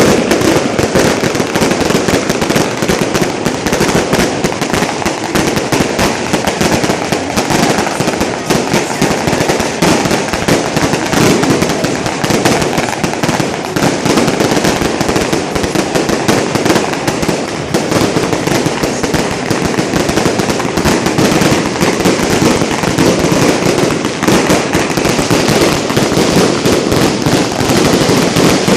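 Street fireworks going off as a loud, rapid, unbroken crackle of bangs that does not let up.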